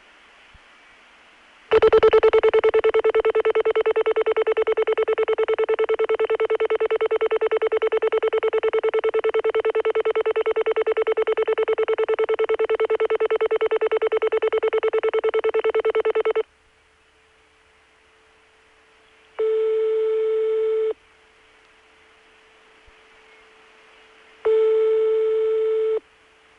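Telephone line audio of a call to France going through. The French network's call-progress tone, a steady buzzy tone, holds for about fifteen seconds while the ITT rotary switching searches for a route, then cuts off. After a pause with faint line hiss, two rings of French ringback tone follow, each about a second and a half long, about five seconds apart.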